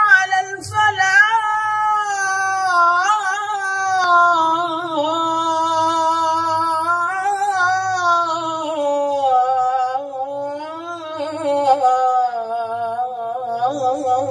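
Unaccompanied solo singing: one high voice holding long, wavering notes with ornamented turns, with no instruments or beat.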